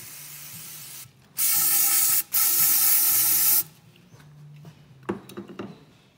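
Aerosol spray can with a straw spraying into a motorcycle fork tube. A steady hiss runs for about a second, then come two loud blasts of about a second each. A short clatter follows about five seconds in.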